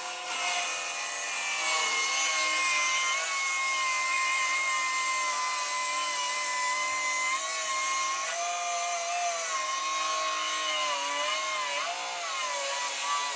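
Bosch GKS 185-LI cordless brushless circular saw with an Expert for Wood blade ripping a wooden beam lengthwise at full cutting depth. It runs as a steady whine under heavy load, and in the last few seconds the pitch wavers and sags as the motor labours in the cut.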